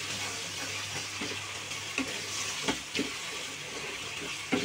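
Papaya halwa sizzling in ghee and syrup in a nonstick kadhai while a spatula stirs it, with a few knocks of the spatula against the pan. The sugar syrup is being cooked down to thicken the halwa.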